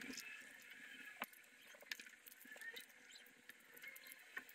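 Near silence, with a few faint clicks and light squeaks of two pairs of pliers gripping and bending a small aluminium plate.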